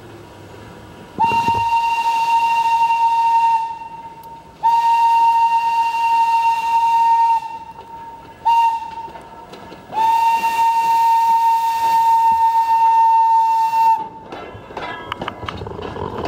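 Thomas the Tank Engine replica locomotive sounding its whistle on one steady pitch in four blasts, long, long, short, long: the standard railroad warning for an approaching grade crossing. Near the end the whistle stops and a quickening run of sharp clicks begins as the train comes alongside, typical of wheels passing over rail joints.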